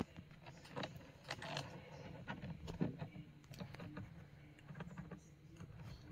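Faint scattered light clicks and short rustles over a low steady hum, with no speech.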